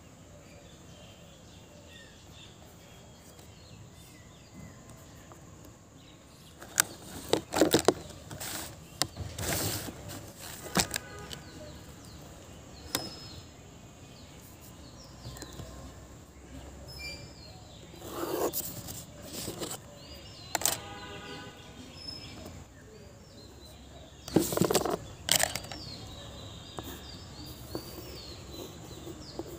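Steady background noise with faint bird chirps, broken three times by clusters of loud knocks and rustles: handling noise from the drawing paper, pencil and ruler being moved on the board.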